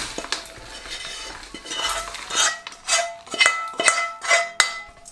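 A metal spoon scraping and clinking against a metal pan while stirring a thick, hot jaggery and sesame mixture. In the second half the spoon strikes the pan about twice a second, each knock ringing briefly.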